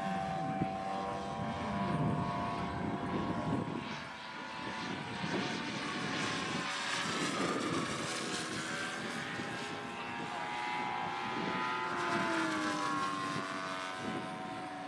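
Radio-controlled model aeroplane engines and propellers running in flight overhead. The pitch rises and falls slowly as the models pass and the throttle changes.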